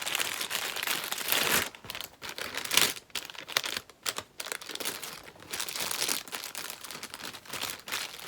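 Packaging being unwrapped by hand: crinkling and rustling in irregular bursts, loudest about a second in and again just before three seconds in.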